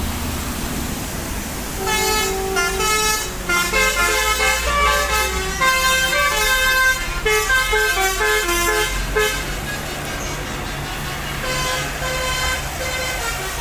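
Tour bus's 'telolet basuri' musical air horn playing a quick tune of short, changing notes from about two seconds in until about nine seconds, then sounding a held note near the end, over a steady low rumble.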